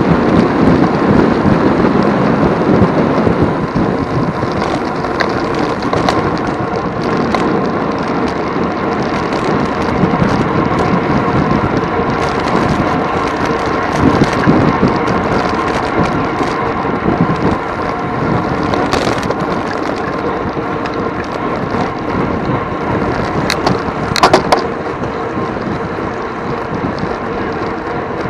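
Steady wind rush and road rumble on the microphone of a road bike ridden at race speed in a criterium, with a few sharp clicks about four seconds before the end.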